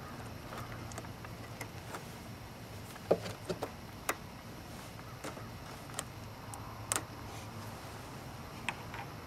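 Pliers working a plastic quick-splice wire connector: a handful of sharp clicks and snaps, the loudest about three seconds in, with more around four, six, seven and nine seconds, over a steady low hum.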